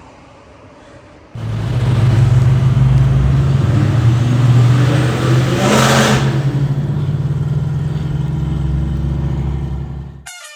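Race car engine running loud and steady at close range, starting suddenly about a second and a half in, with a brief louder burst about midway, then cutting off suddenly near the end.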